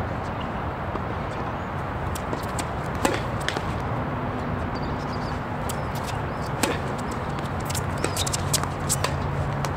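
Steady murmur of a tennis venue, with a single sharp knock about three seconds in and another later, then a quick run of short sharp clicks near the end.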